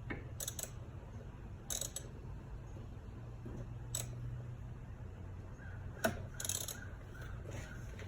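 Hand tools, a ratchet with a universal joint and socket, giving a handful of scattered metallic clicks and taps as they are worked around engine parts, with a brief rustle near the middle, over a low steady hum.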